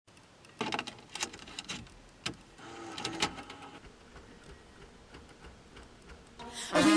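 A few scattered clicks and knocks of small handling noises, with a short pitched whir about three seconds in. A pop song with singing starts playing loudly just before the end.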